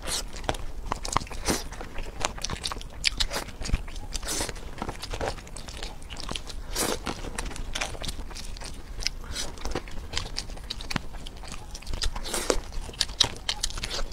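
Eating sounds of shrimp being bitten and chewed, with many irregular crisp clicks and crunches as shrimp shells are peeled by hand.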